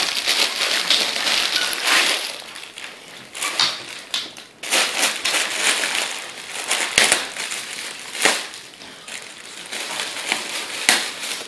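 A dog tearing into a gift-wrapped present: wrapping paper crinkling, rustling and ripping in irregular spurts, loudest in the first couple of seconds.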